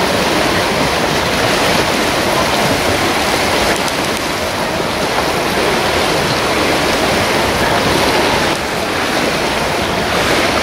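Steady rushing splash of several swimmers racing freestyle in a pool, their arm strokes and kicks churning the water.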